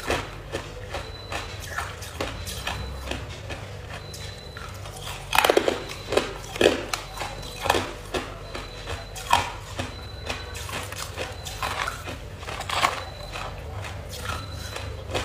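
Hard ice cubes being crunched between the teeth, close to the microphone: irregular sharp cracks and crunches, with a quick run of louder ones about five seconds in.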